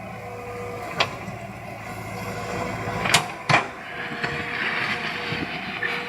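Excavator running steadily, with three sharp knocks, one about a second in and two close together past the middle.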